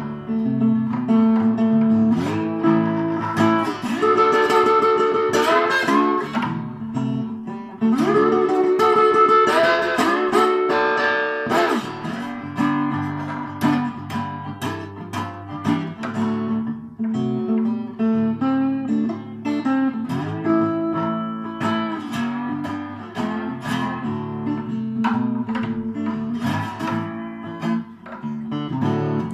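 Harley Benton Custom Line N-150CE resonator guitar played with a metal slide: picked notes and chords, with notes gliding up and down in pitch.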